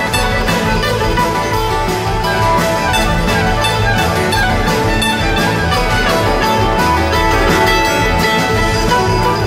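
Live amplified string band with drums playing a song: plucked strings and sustained notes over a steady beat, loud and continuous.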